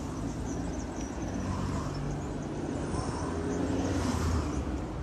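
Steady low outdoor background rumble, with faint hums that come in around the middle and near the end.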